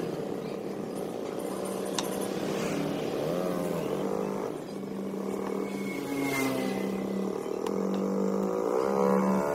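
Background music of held and gliding tones, with a sharp click about two seconds in.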